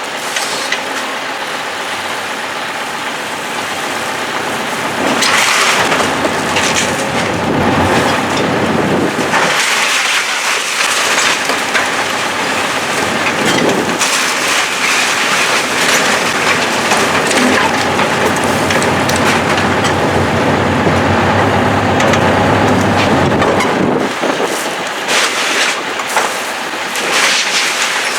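A building being demolished by heavy machinery: debris crunching and crashing down over a continuous machine noise. It grows louder about five seconds in and eases near the end.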